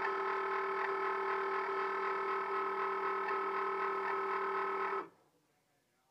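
Cricut Maker cutting machine giving a steady motor whine as the felt-loaded mat is loaded in. The whine cuts off abruptly about five seconds in.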